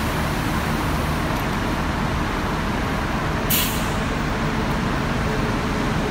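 Isuzu city bus engine idling steadily at the stop, with a short burst of air hiss from the bus about three and a half seconds in.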